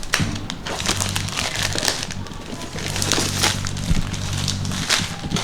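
Crinkling and rustling of a phone's retail packaging being handled, in many short crackles, over a steady low hum.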